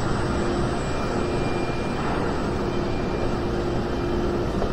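Steady din of a busy indoor exhibition hall: a dense rumble and hiss with a faint steady hum running under it.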